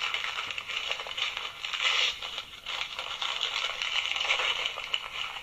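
Recorded sound effect of wrapping paper being torn and crinkled while a present is unwrapped, played from a Christmas novelty sound button's small speaker. It is a steady, thin-sounding crackle and rustle that stops abruptly.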